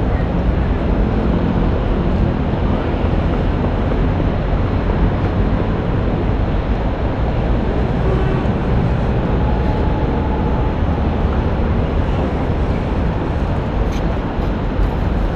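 City street traffic: a steady low rumble of passing cars.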